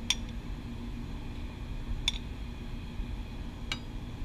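Metal kitchen tongs clicking three times, a couple of seconds apart, as they pick up and set down onion rings, over a steady low fan hum.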